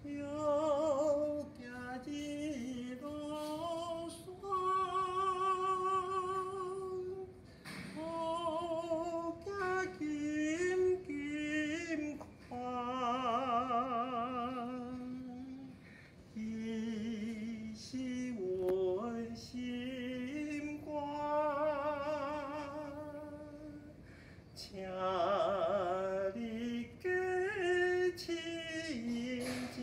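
One voice singing unaccompanied, in phrases of a few seconds with long held notes and wide vibrato, pausing briefly for breath between phrases.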